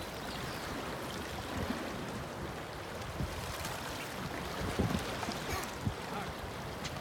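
Steady rush of Columbia River water washing along a rocky bank, with a few faint knocks.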